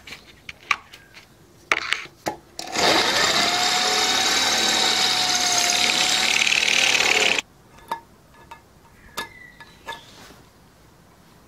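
Electric drill spinning up and boring a 10 mm hole in a wooden board for about four and a half seconds, starting about three seconds in and stopping abruptly. Light handling clicks and knocks come before and after it.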